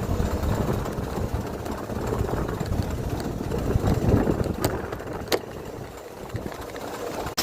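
Suzuki Wagon R (MH23S) K6A three-cylinder engine idling unevenly, with two sharp clicks a little over halfway through. This is the engine whose abnormal noise is being tracked down.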